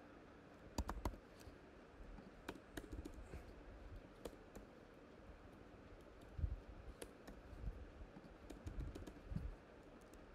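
Typing on a computer keyboard: scattered keystroke clicks in small bursts, with a few dull low thumps in the second half.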